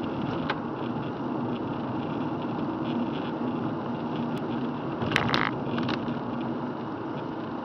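Steady road noise inside a moving car on a wet road: a low hum with tyre hiss. A brief scrape or rattle sounds about five seconds in.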